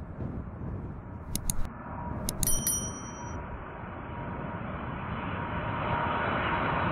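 Boeing 747 freighter's jet engines on low final approach: a steady rumble with a faint whine, growing louder as the jet nears. About a second and a half in come two sharp clicks, and about a second later a bright bell-like ding rings briefly; this is the subscribe-button sound effect laid over the recording.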